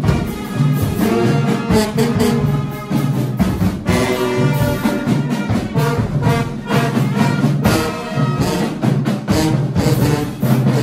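High school marching band playing: trumpets, trombones and a low brass line with saxophone and clarinets over snare and bass drums and cymbals, in a steady beat.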